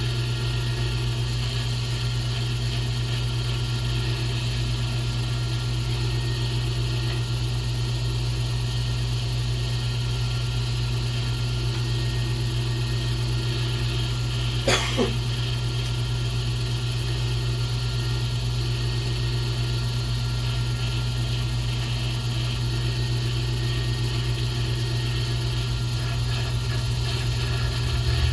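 Pen-turning lathe running at a steady speed, its motor giving a constant low hum. Halfway through there is a brief double knock.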